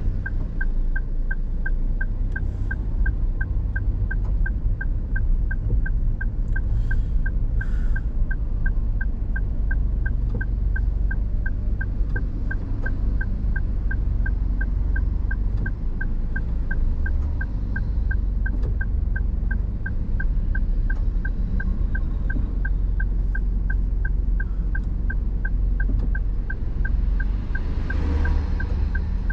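Car's turn-signal indicator ticking evenly, a little over two ticks a second, inside the cabin over the low rumble of the car's engine and road noise in stop-and-go traffic.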